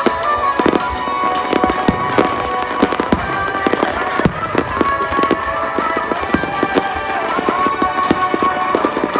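Fireworks going off in quick succession, many sharp bangs and crackles at irregular intervals, with music playing throughout.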